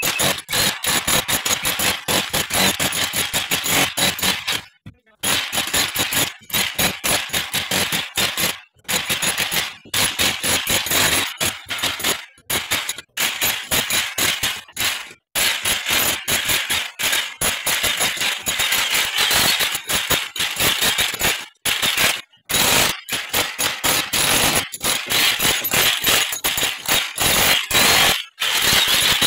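Electric demolition hammer with a chisel bit hammering rapidly into a brick wall, chipping out a channel along the mortar line. The hammering comes in long bursts, cut off by short pauses several times.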